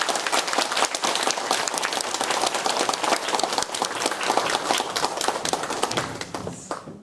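Audience applauding, a dense patter of many hands clapping, fading away near the end.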